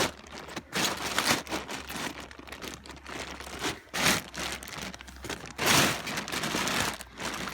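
Irregular rustling and crunching, a series of uneven noisy bursts with the longest near the end, like movement through brush and slide debris close to the microphone.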